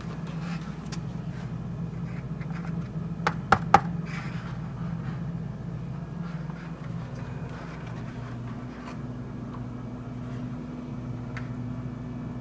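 Eggs being handled in a cardboard egg carton: two sharp clicks about three and a half seconds in, over a low steady hum.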